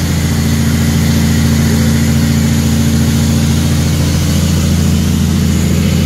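Heavy truck's diesel engine running steadily under way, a deep continuous drone heard from inside the cab.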